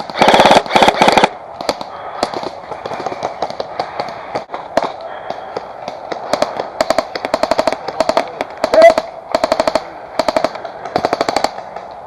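Airsoft guns firing rapid full-auto bursts: two loud, close bursts right at the start, scattered single shots, then a run of shorter bursts one after another from about halfway through until near the end.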